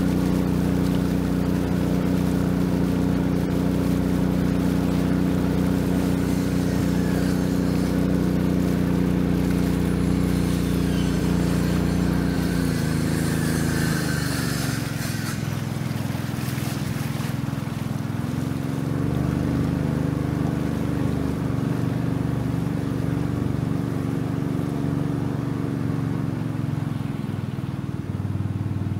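Long-tail boat engine running steadily, then throttling down a little past halfway through and running on at a lower pitch.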